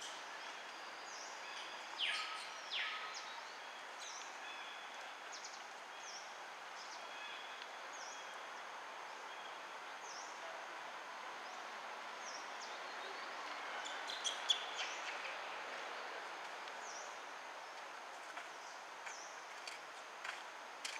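Steady outdoor background hiss with birds chirping, short high chirps repeating about once a second. Two louder falling calls come about two seconds in, and a few sharp clicks come near the middle.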